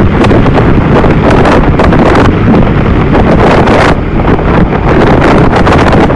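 Loud wind buffeting the microphone of a camera on a moving motorcycle at road speed, a steady rushing roar with irregular gusts that drowns out the engine; it eases briefly about four seconds in.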